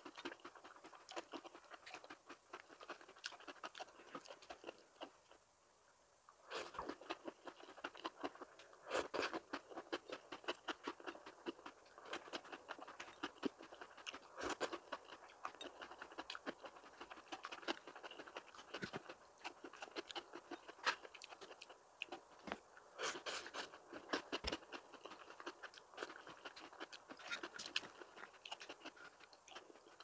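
A person chewing and crunching food close to the microphone: a dense run of crisp crunches, with a brief pause about five seconds in.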